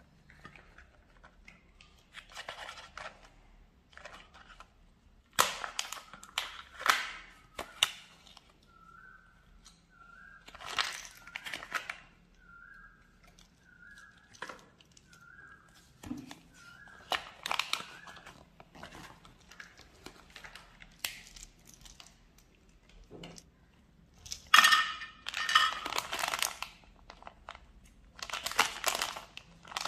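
Sweet packaging handled close up: bursts of crinkling plastic wrapper and sharp clicks of a hard plastic Kinder Joy egg and its small toy pieces, loudest in a few bursts near the end as a Cadbury Gems packet is handled.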